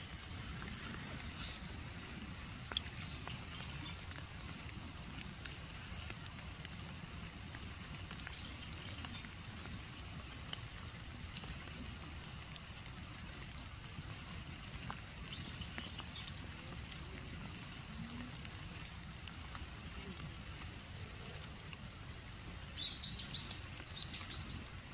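Outdoor ambience: a steady low rumble with scattered faint ticks from light rain, and a bird chirping softly now and then. Near the end comes a quick, louder series of high chirps.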